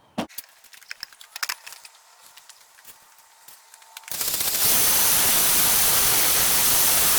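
A few light clicks and taps, then about four seconds in a grinder bites into a piece of steel with a loud, steady hissing grind for about three seconds before stopping abruptly. This is a spark test to identify the steel, which turns out to be mild steel.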